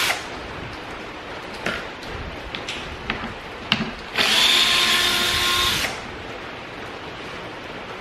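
Cordless drill-driver with a T25 Torx bit backing out a small screw from a third brake light housing. It runs once, a steady whine of just under two seconds starting about halfway through, after a few light clicks of handling.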